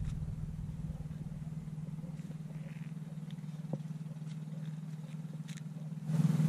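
An engine running with a steady low hum, growing suddenly louder about six seconds in.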